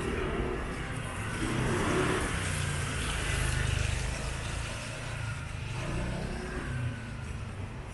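A car driving slowly past on a rain-wet street, its engine running under the hiss of its tyres, growing louder for a couple of seconds and then easing off.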